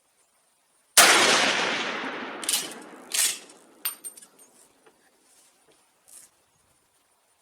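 A single rifle shot from a Swiss K-31 firing 7.5x55mm GP11 ammunition, about a second in, with a long echo dying away over about two seconds. A few sharp metallic clacks and a ringing clink follow, then fainter ticks.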